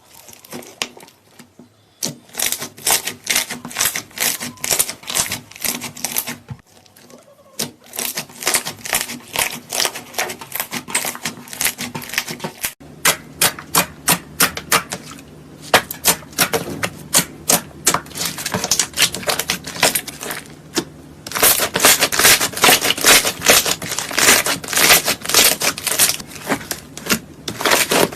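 Slime being squeezed and worked by hand, giving rapid runs of sharp clicks and pops, several a second, with a few brief pauses.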